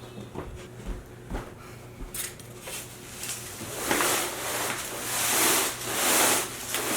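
Packing material handled while a heavy piece is worked out of a large cardboard box: a few light knocks, then loud scraping and rustling from about four seconds in.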